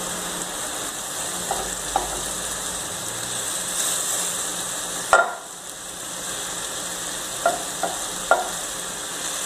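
Seasoned fish pieces sizzling as they are laid into a hot clay pot over softened onion, pepper and tomato: a steady frying hiss with a few light clicks, and one sharp knock about five seconds in.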